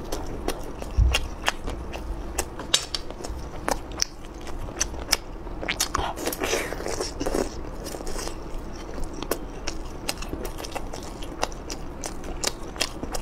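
A person biting and chewing spicy skewered food: wet mouth sounds with many short, sharp crunchy clicks at an irregular pace.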